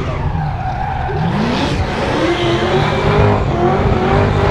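A car drifting in circles: its engine revving, rising and falling in pitch several times, over the squeal of its spinning tyres.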